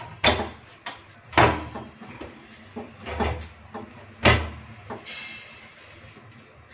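Hands kneading and pressing a stiff wheat-flour and jaggery dough in a steel plate, making four dull thumps and knocks spread over the first four and a half seconds, with small clicks and rustles between.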